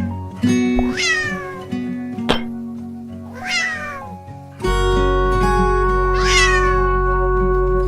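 A cat meowing three times, each meow falling in pitch, over background music.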